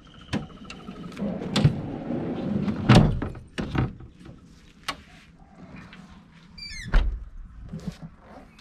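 Metal drop-down fridge slide in a ute canopy being raised and pushed back in: a run of clunks, rattles and a sliding scrape, with a loud knock about three seconds in. About seven seconds in comes a short squeak and a thud.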